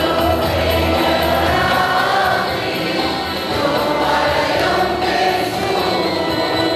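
Church choir singing an Arabic Christian hymn (tarnima), with sustained sung notes over a steady low accompaniment.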